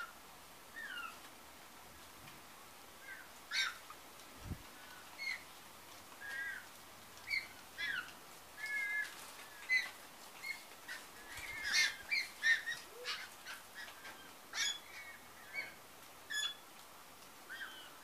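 White-winged choughs calling as they feed: a long string of short chirps and whistles, many sliding up or down in pitch, coming thickest around the middle.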